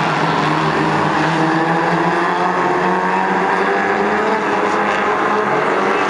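Stock car racing engines running hard at speed, a loud, steady note whose pitch wavers gently up and down.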